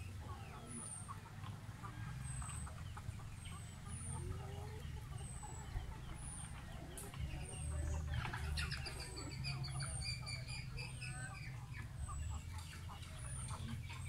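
Free-range chickens clucking, loudest in a stretch of quick clucks about eight seconds in, with a short high chirp repeating about once a second throughout.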